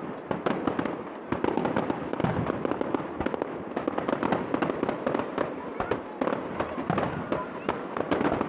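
Fireworks display: aerial shells bursting one after another, a dense run of sharp bangs and pops in quick succession.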